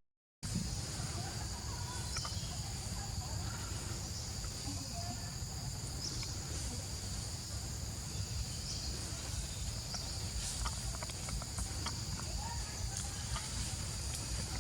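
Steady chorus of insects, a continuous high-pitched buzzing, over a low rumble, with scattered faint clicks and rustles. The sound drops out for a split second at the very start.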